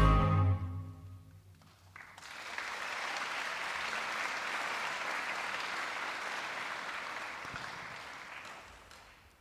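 The music fades out within the first second or so. Then an audience applauds, starting about two seconds in, holding steady, and dying away near the end.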